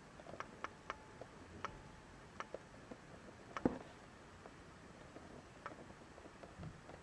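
Light irregular clicks and taps of fingers handling a small cardboard blind box, with one louder tap about halfway through.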